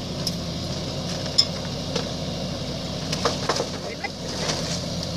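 Kubota mini excavator's engine running steadily, with a few sharp knocks and clatters as the bucket works over the cart.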